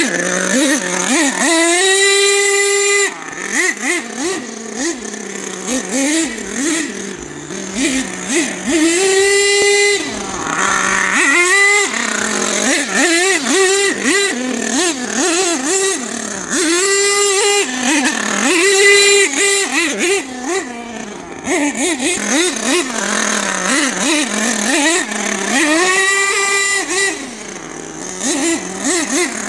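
HPI Savage X 4.6 nitro RC monster truck's small two-stroke nitro engine, buzzing through repeated full-throttle runs. The pitch climbs and holds high for about a second on each run, with many short throttle blips in between. It drops back to a lower steady note near the end.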